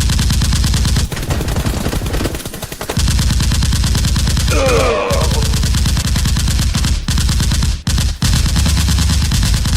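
Rapid automatic-gunfire sound effects: long bursts of machine-gun fire with brief breaks, dubbed over a Nerf blaster battle.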